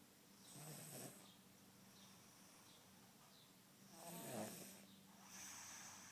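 A sleeping girl snoring faintly, in deep sleep: two snores, about a second in and about four seconds in, each with a hiss of breath, then a softer breath near the end.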